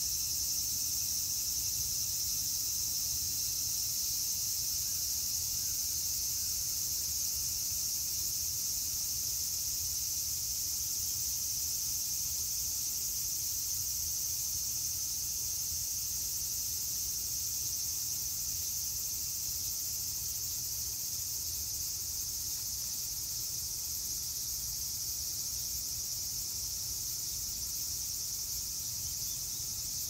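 Cicadas singing in a steady, unbroken high-pitched drone, with a low steady rumble underneath.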